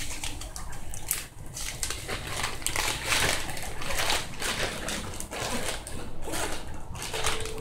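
Small plastic bag crinkling and rustling as it is handled while tiny gold beads are poured out of it, in irregular scratchy rustles.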